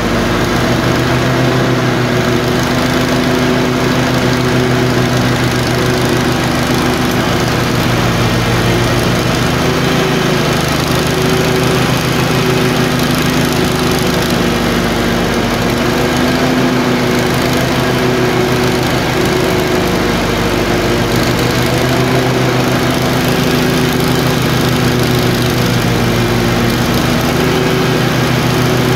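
Tecumseh 22 HP twin-cylinder engine running at a fairly even speed, with a random misfire that alternates between its two cylinders.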